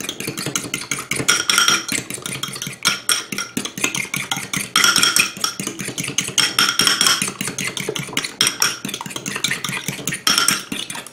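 Fork beating raw eggs in a bowl: a rapid, steady clinking of the fork against the bowl, with the bowl ringing in short spells.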